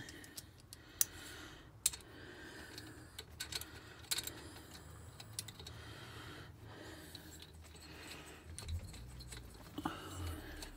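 Irregular small metallic clicks and taps of a magnetic nut driver, steel head nuts and washers as the cylinder head nuts are run onto their studs by hand.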